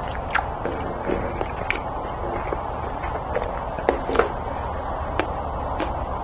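Close-miked mouth sounds just after a drink: scattered small lip smacks and clicks over a steady background hiss. A glass jar is set down on the table.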